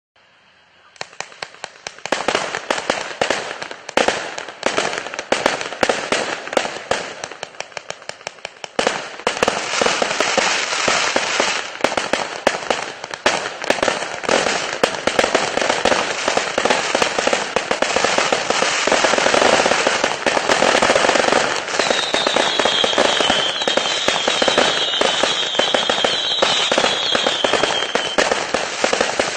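A 0.8-inch, 1000-shot fireworks cake firing: a rapid string of sharp cracks starts about a second in and thickens into a dense, continuous barrage about nine seconds in. In the last third, short high falling tones repeat over the crackling for several seconds.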